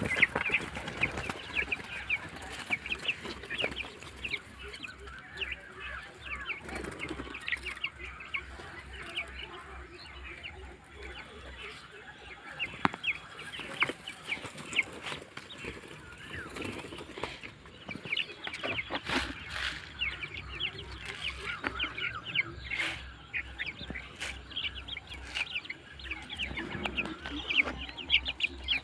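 A crowd of Vanaraja chicks peeping continuously, many short high-pitched cheeps overlapping, with a few sharp knocks among them.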